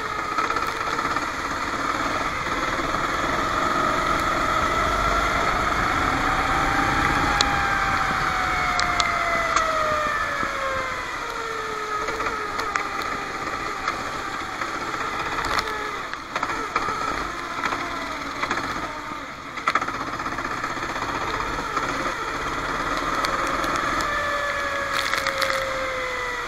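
Racing kart engine running hard, its pitch climbing under acceleration and then falling away as it slows for a corner, twice. A cluster of sharp knocks and clicks comes about two-thirds of the way through.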